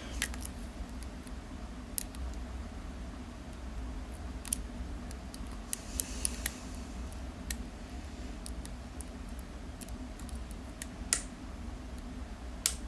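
Lock pick and tension wrench working the pins inside a euro cylinder lock: small metallic clicks and scratches at irregular intervals as pins are lifted and set, over a faint low hum.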